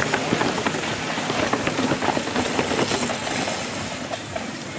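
Passing train: a steady rushing noise with rapid clattering, fading a little near the end.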